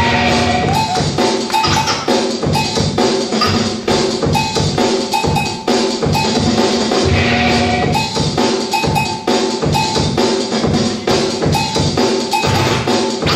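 Loud breakbeat music with a steady drum beat.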